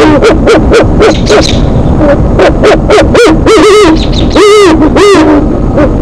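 Great horned owls calling back and forth at the nest: a loud, quick run of short hoots mixed with sharper, higher calls.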